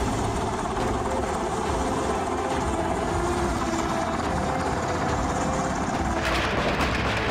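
Helicopter flying overhead, its rotor and engine a steady, loud drone. About six seconds in, a sharper crackling sets in over it.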